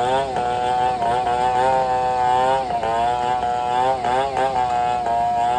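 Two-stroke chainsaw running at high revs, its pitch dipping briefly a few times.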